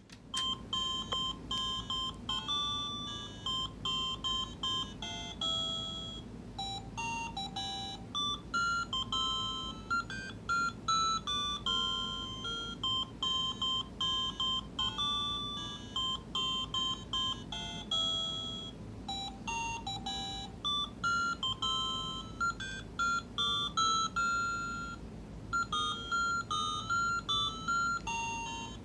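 Animated toy snowman's sound chip playing a tune of electronic beeping notes that step up and down in pitch, over a steady low hum.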